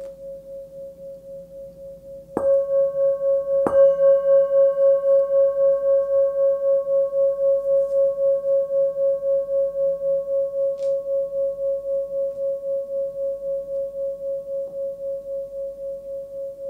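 Small forged singing bowl, 10.8 cm across, tuned to about 549 Hz (C sharp), ringing on from an earlier stroke and then struck twice, about two and a half and nearly four seconds in. Its high tone rings on with a steady pulsing wobble and slowly fades.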